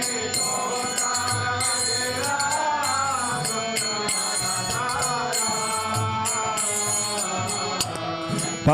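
A group of devotees singing a line of a Bengali kirtan together in response to the leader, over sustained instrumental notes and a steady rhythmic jingle of hand cymbals (kartals).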